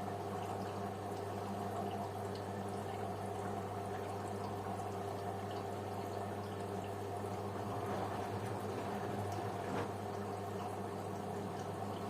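LG washing machine running with water flowing in, over a steady low hum.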